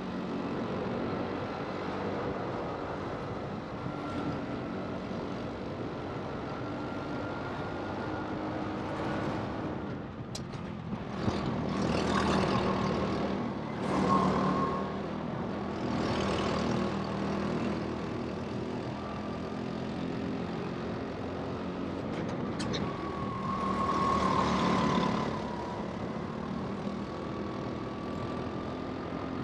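Rental go-kart running at racing speed, its motor drone sliding up and down in pitch as it speeds up and slows through the corners. Several louder rushes of noise come and go.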